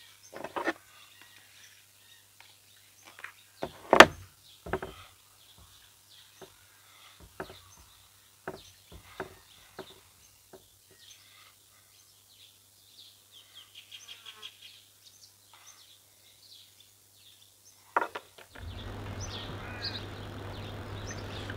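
Small clicks and scrapes of a plastic butter tub being opened and a knife spreading butter on a slice of bread, with one sharp click about four seconds in. Near the end the sound switches to a steady outdoor background with birds chirping.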